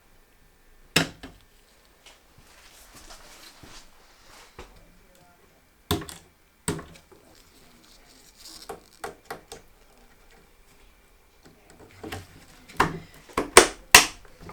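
Computer parts being handled and fitted during a PC assembly: sharp clicks and knocks, one about a second in, two around six to seven seconds, and a quick cluster of the loudest near the end, with soft rustling and scraping between.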